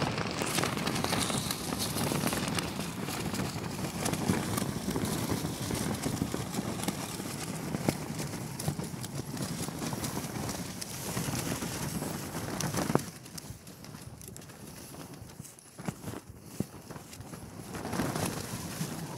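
Tent fabric flapping and rattling in gusty wind, a dense irregular clatter. It drops off abruptly about two-thirds of the way in, then builds again near the end.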